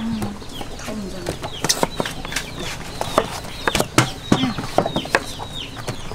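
Cleaver chopping through a green vegetable onto a wooden chopping block: a series of sharp knocks at an uneven pace. Chickens cluck and chicks peep in the background.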